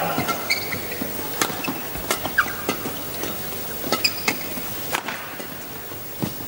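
Badminton racket strokes on a shuttlecock during a fast rally, sharp hits about once a second, with brief squeaks of players' shoes on the court mat.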